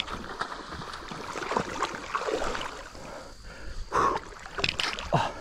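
River water flowing and splashing, with a couple of short louder sounds about four seconds in.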